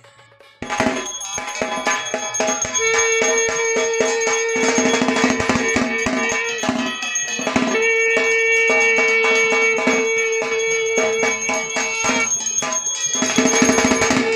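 Puja percussion: fast, steady drum and bell strokes. Through it a long held tone sounds in three stretches of about four seconds each, starting about half a second in.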